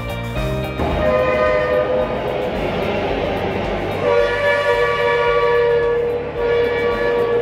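Street traffic passing with long blasts of a vehicle horn: a short blast about a second in, then two longer blasts from about four seconds in.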